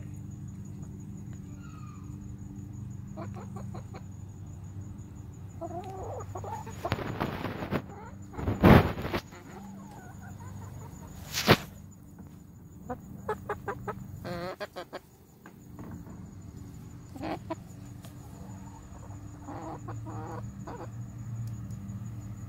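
Domestic hens clucking in quick runs of short pulses and calling, with a loud sharp burst about nine seconds in and a single click a few seconds later, over a steady low hum.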